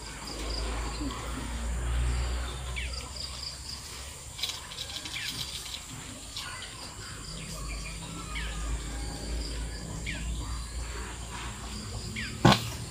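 Outdoor ambience of birds calling in short, falling chirps over a steady high insect drone, with a low rumble underneath. A single sharp click near the end is the loudest sound.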